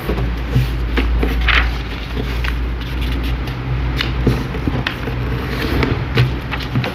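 A sheet of A4 paper being folded and creased by hand: short crackles, rustles and taps as fingers press along the folds. A steady low hum runs underneath.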